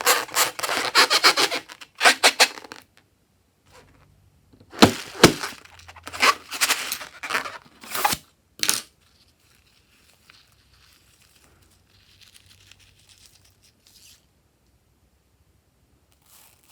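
Close-up crackling and tearing sounds of slime-making materials being handled: dense crackles at first, a run of louder tearing bursts in the middle, then faint scratching.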